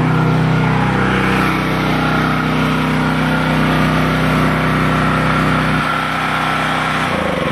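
Portable gasoline generator running loud and steady while carrying the house's electrical load. Its note changes about six seconds in, as it is being shut off.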